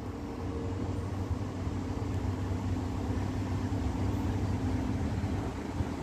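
Class 181 electric locomotive approaching at the head of a train of tank wagons: a steady hum of several tones over a low rumble, growing louder in the first second and then holding.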